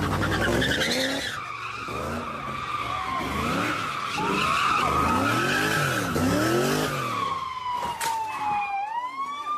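A car spinning donuts: tyres screeching and the engine revving up and down again and again. A police siren comes in about four seconds in, its wail slowly falling and then rising again near the end.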